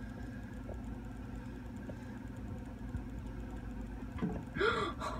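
A steady low hum, with a brief louder sound whose pitch rises and falls near the end.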